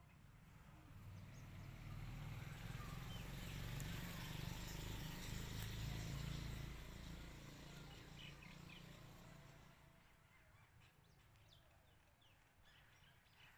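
Faint outdoor ambience: a low rumble and hiss swell over the first several seconds and then die away, and a few faint bird chirps come near the end.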